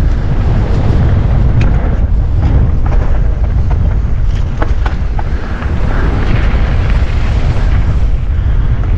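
Wind buffeting an action camera's microphone as a mountain bike rides down a trail: a steady heavy rumble, with scattered sharp clicks and rattles from the bike.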